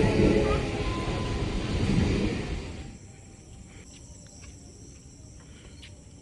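Electric suburban local train running past, a loud steady rumble and rattle of the coaches, which drops away about three seconds in to a much quieter background with a few faint clicks.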